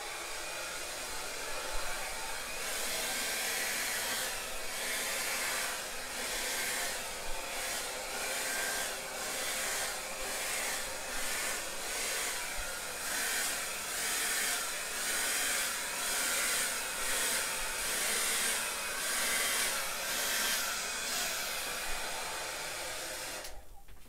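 Hand-held hair dryer blowing steadily, used to push wet acrylic pour paint across the canvas. Its rushing air swells and fades about once a second, and it switches off just before the end.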